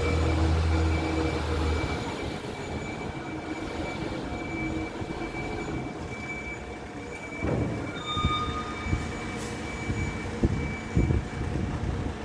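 Garbage truck's engine running with a steady high-pitched whine, the low drone heaviest in the first two seconds. In the last third come several sharp knocks and clanks of metal.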